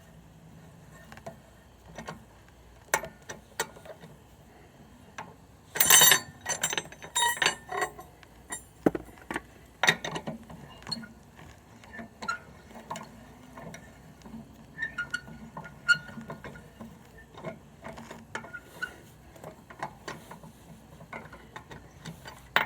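Irregular metal clicks and clanks of a tire iron working lug nuts off a car wheel, the nuts clinking as they are handled, with a loud run of clanks about six seconds in.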